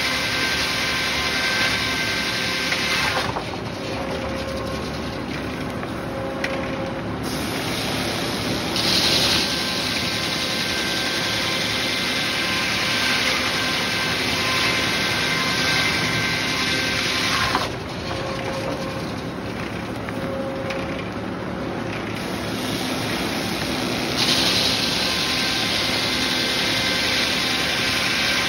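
Large circular sawmill blade ripping through a cant, sawing off three 2x4s per pass, over the steady running of the mill. The cutting drops away twice, about three seconds in and again about eighteen seconds in, and the mill runs quieter for several seconds each time before the blade bites into the wood again.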